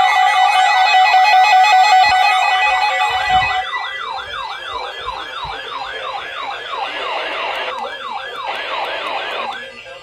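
Several weather alert radios alarming for a severe thunderstorm warning. A steady, harsh two-tone alert signal stops about three and a half seconds in, leaving a siren-like warble that sweeps up about three times a second and cuts off near the end.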